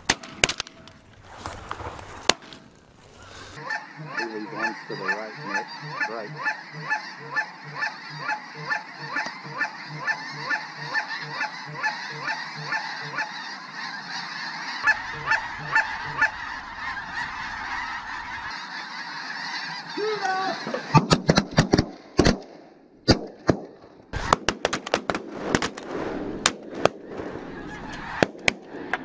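Snow geese calling over the decoys in an evenly paced run of honks, about two a second. About 21 seconds in, a volley of shotgun blasts breaks out, with more shots in quick succession near the end.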